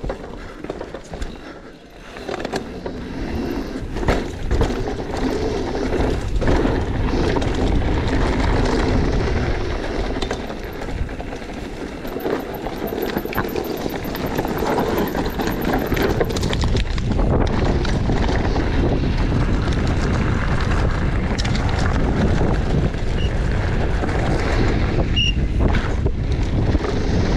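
Cube Two15 downhill mountain bike ridden fast down a dirt and gravel track: tyres rumbling over dirt and loose stones, and the bike clattering over bumps, under heavy wind rush on the camera microphone. The noise builds over the first few seconds and then stays loud.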